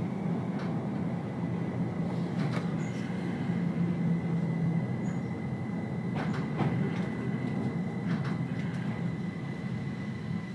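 Keihan Keishin Line train running, heard from inside the passenger car: a steady low rumble of wheels and running gear with a thin steady whine above it and a few sharp clicks spread a few seconds apart. The sound eases off near the end as the train slows into the station.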